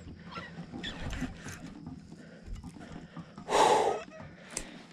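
A man breathing hard with excitement, short huffs and a heavy breath out about three and a half seconds in.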